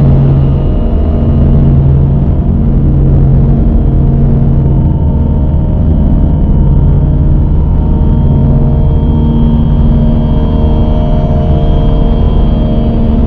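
Dark ambient drone music: a loud, dense low rumbling drone with sustained low tones swelling in slow pulses every couple of seconds, and faint held higher tones above.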